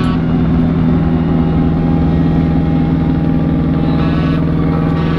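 Tugboat's diesel engine running steadily at a constant speed, a loud, even low drone.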